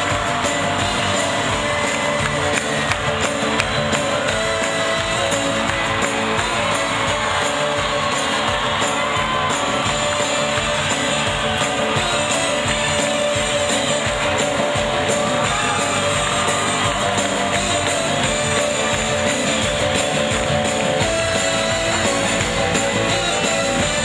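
Live band playing music, guitars among the instruments, recorded from within the audience.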